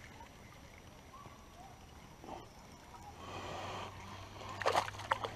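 Hooked smallmouth bass thrashing and splashing at the surface beside the boat, with a few loud, sharp splashes near the end.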